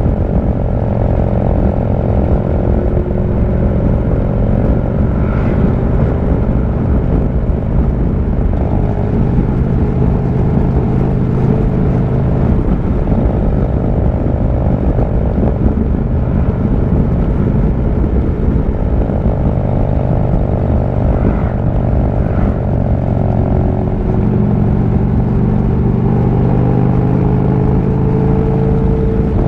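Harley-Davidson V-twin engine running at road speed, its note rising and falling slightly with the throttle and climbing gradually near the end, over steady wind rush on the microphone.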